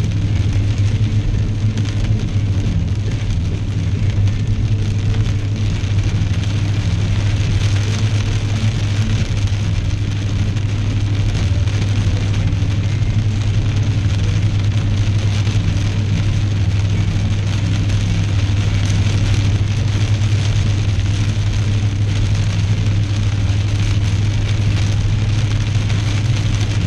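A car driving in the rain: a steady low drone from the car under a constant hiss of rain.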